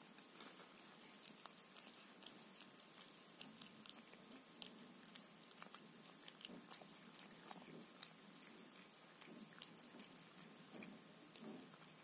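Cat eating wet pâté from a foil tray: faint, irregular small wet clicks and smacks of licking and chewing.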